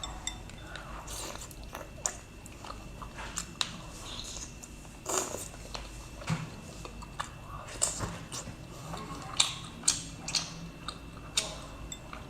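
Close-miked eating of a large sea snail in red chili oil: chewing and biting, with many short, sharp wet clicks and smacks at irregular intervals.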